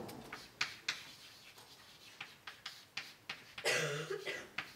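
Chalk writing on a blackboard: a string of sharp taps and short scratches as letters are written, with a brief louder scrape or throat sound near the end.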